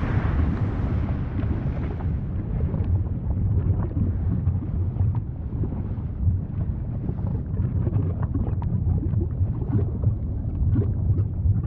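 Volcano rumbling deeply and steadily, with scattered small crackles and pops over the rumble.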